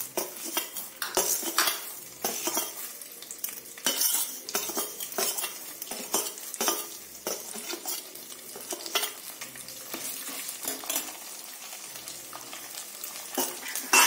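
Chana dal and urad dal sizzling in hot oil in a pressure cooker, with a steel spoon clinking and scraping against the pot and plate as they are added and stirred. This is the tempering (popu) being fried for tamarind pulihora.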